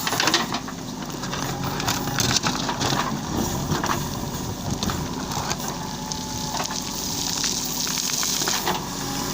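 JCB 3DX backhoe loader's diesel engine running steadily, with repeated clanks and crunching knocks over it and a hiss lasting about two seconds near the end.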